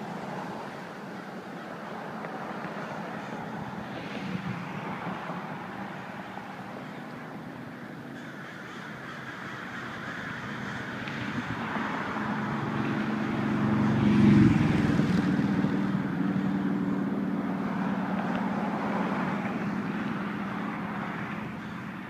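Many crows cawing together. A motor vehicle passes on the road partway through; its engine is loudest about two-thirds of the way in and then fades.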